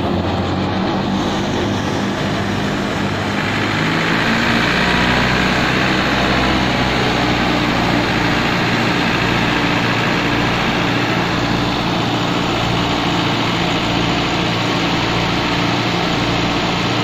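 Massey Ferguson 385 tractor's four-cylinder diesel engine running steadily under load, driving a wheat thresher through its PTO shaft, over the thresher's steady rush of straw and chaff. The rush grows a little louder about three to four seconds in.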